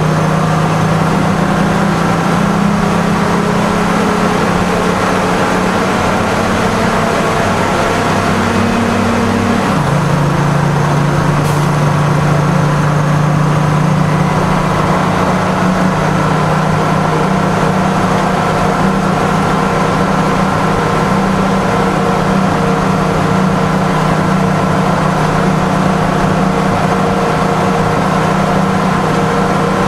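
Seagrave fire engine's Detroit Diesel 6-71 two-stroke inline-six diesel pulling along the road, heard from inside the cab. The engine pitch climbs slowly, then drops suddenly about ten seconds in as the automatic transmission shifts up, and the engine then runs steady.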